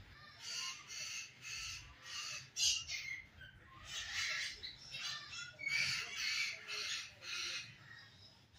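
A flock of parrots squawking, short harsh calls following one another about every half second. These are their noisy calls at roosting time.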